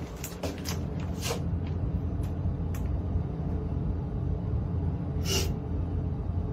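Elevator car travelling between floors: a steady low rumble, with a few light clicks and one sharper tick a little past five seconds in.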